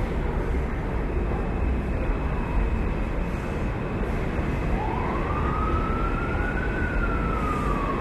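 An emergency vehicle's siren wailing: one slow rise in pitch starting about halfway through, then a long, gradual fall, over a steady low rumble.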